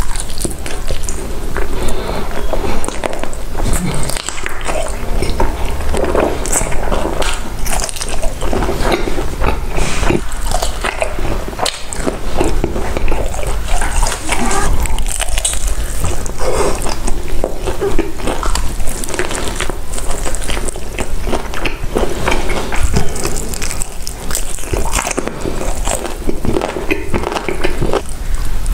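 Close-miked eating: continuous wet chewing and biting, with many small smacks and crunchy clicks in quick succession.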